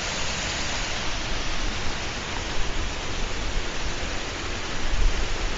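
Rushing water of a mountain waterfall: a steady, even roar of falling water.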